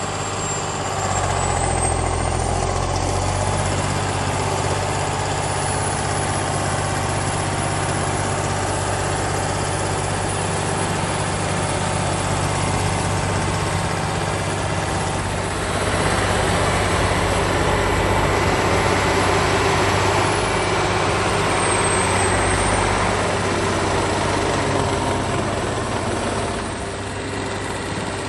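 Heavy wheeled tractor's diesel engine labouring under load as it tries to drive out of deep muddy water, its wheels churning water and mud. The engine works harder for a few seconds past the middle, then eases off near the end.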